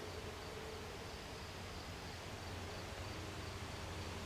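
Faint, steady outdoor background: a constant low hum under an even hiss, with no distinct events.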